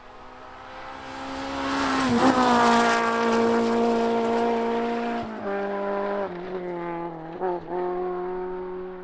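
Rally car engine at high revs approaching and passing close by, loudest about two to three seconds in, where its note dips as it goes past. The engine note then steps down in pitch several times as the car pulls away.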